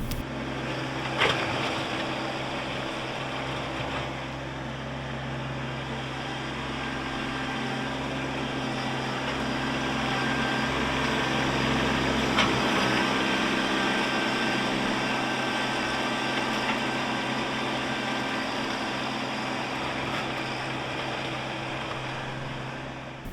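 Kubota B2650 compact tractor's three-cylinder diesel engine running steadily under load while pushing and dragging shale, a little louder in the middle. Two short sharp knocks, about a second in and about twelve seconds in.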